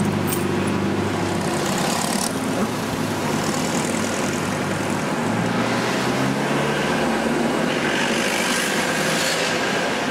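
City street traffic: cars driving past close by one after another, engine hum under tyre noise that swells with each passing car, at about two seconds in, around four seconds, and again near the end.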